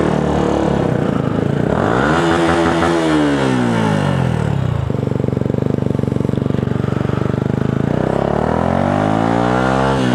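Yamaha YZF-R125's single-cylinder four-stroke engine through an aftermarket Devil exhaust, ridden on the road. It revs up about two seconds in and winds down as the throttle closes, holds a steady pitch for a few seconds, then revs up and drops off again near the end.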